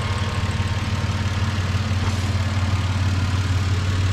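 Toyota 1FZ-FE inline-six with a freshly rebuilt top end, idling steadily with an even low hum.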